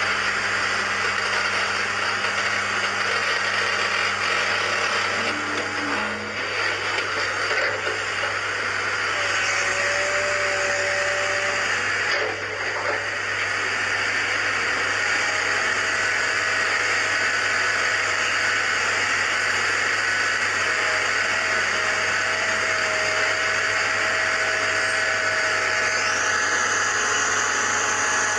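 Excavator engine and hydraulics running steadily while powering a hydraulic pile breaker that cuts concrete piles. Thin whining tones come and go over the steady noise.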